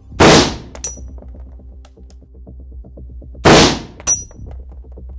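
Two AN-94 assault rifle bursts in 5.45×39mm, fired about three seconds apart. Each two-round burst comes out as a single sharp report, and each is followed about half a second later by a short metallic clink with a brief high ringing. Electronic music with a steady beat plays underneath.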